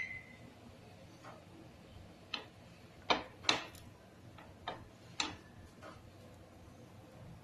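A handful of sharp, irregular clicks and taps, like a utensil knocking against a pan while the bread slice is pressed and cooked; the loudest come about three seconds in.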